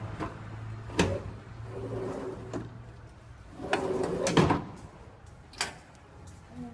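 Metal knocks and clunks from the crimping dies of a hydraulic hose crimping machine being handled and swapped for another hose size. There are separate knocks about a second in, near two and a half seconds, a cluster just past four seconds and one more near the end, over a steady low machine hum that stops about halfway through.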